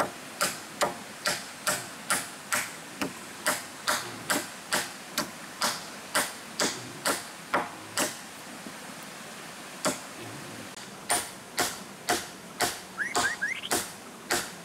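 Hammer blows on wood, nailing the poles of a roof frame together: steady strikes about two a second, a pause around eight seconds in, then another run of blows.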